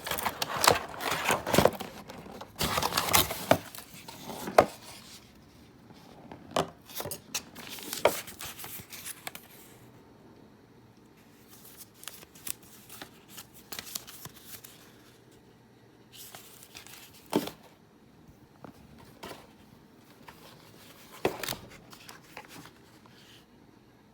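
Keyboard packaging being handled: rustling and crinkling, dense for the first few seconds, then sparser rustles and light knocks with quiet gaps between.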